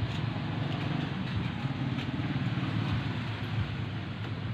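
A motor running steadily with a low drone, a faint tick about two seconds in.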